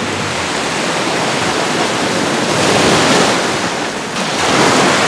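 Shallow surf washing in and out, with two louder rushes of whitewater, one about halfway through and one near the end.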